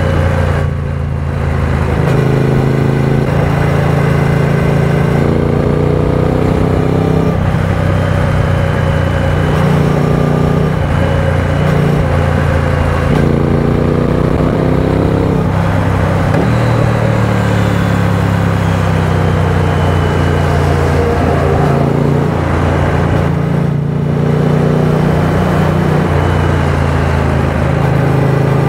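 Triumph Speed Twin 900's 900 cc parallel-twin engine running at road speed, its revs climbing and falling back several times as the rider accelerates and shifts, under a steady rush of wind and road noise.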